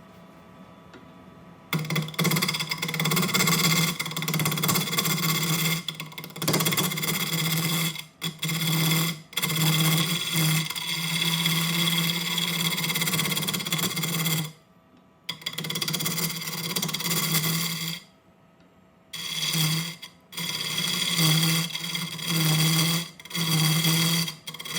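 Wood lathe turning a bowl, a gouge cutting the spinning wood: a loud, rough cutting noise over a steady low hum, starting about two seconds in and broken by several short gaps.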